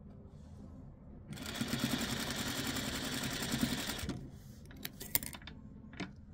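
Sewing machine running for about three seconds as it stitches a seam in a pieced quilt block, then stopping. A few sharp clicks follow.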